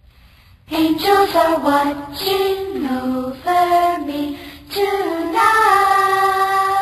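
Children singing a worship song, a melody stepping up and down, coming in under a second in.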